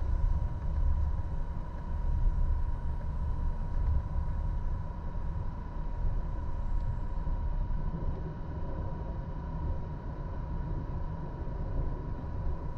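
Passenger train ride heard from inside the coach: a steady low rumble of the wheels on the track, with a thin steady whine.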